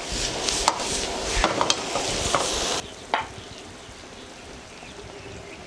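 Pork slices with green peppers and dried cowpeas sizzling in a wok while a metal ladle scrapes and stirs them. The sizzle cuts off abruptly about three seconds in. A single sharp knock follows, then quiet.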